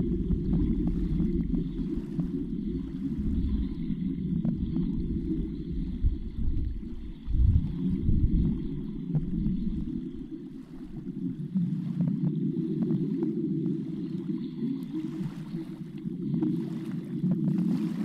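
Low, muffled underwater rumble picked up by a submerged camera, with scattered faint ticks and clicks; it swells about seven seconds in and eases off a few seconds later.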